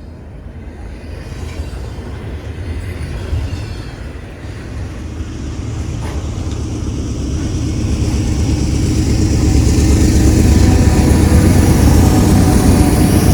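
Union Pacific diesel freight train approaching: a low engine rumble with rail noise that grows steadily louder from a few seconds in.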